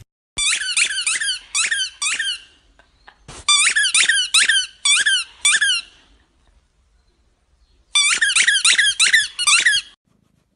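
Squeaky ball toy squeezed in a boxer dog's jaws: three runs of quick, high squeaks, about three a second, each squeak dipping and rising in pitch.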